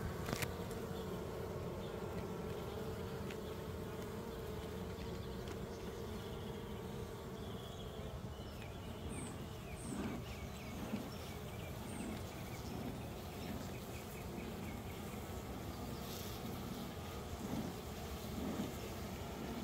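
Honeybee colony buzzing as a steady hum around its exposed combs, with a run of short soft puffs from a bee smoker's bellows in the second half.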